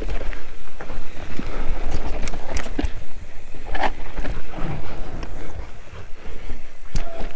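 Mountain bike riding down a rough trail: tyres rolling over rocks and roots, with frequent sharp knocks and rattles from the chain and frame, and wind rumbling on the microphone.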